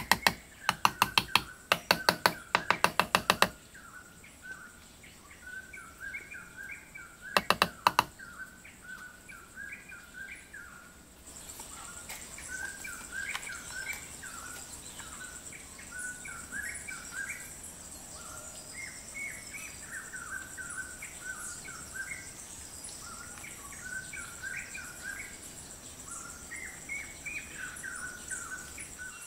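Small birds chirping over and over. A rapid run of sharp knocks fills the first few seconds, and a second short run of about four knocks comes a little over a quarter of the way in. From about a third of the way in, a steady high insect drone runs under the chirps.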